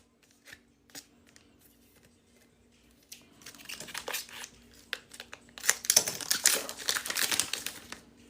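Foil Pokémon booster pack wrapper crinkling and being torn open, a few faint clicks first, then crackling from about three seconds in that grows loudest near the end.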